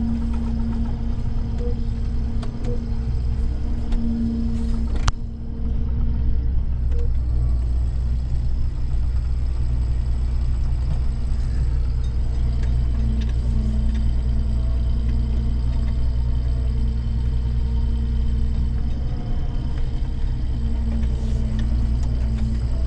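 Combine's diesel engine running steadily, a deep rumble with a constant hum. A single sharp click about five seconds in.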